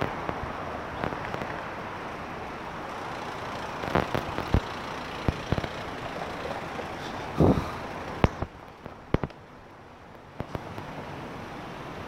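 City street traffic noise, steady and then a little quieter past halfway, with scattered sharp clicks and knocks throughout, the loudest a short thump about two-thirds of the way in.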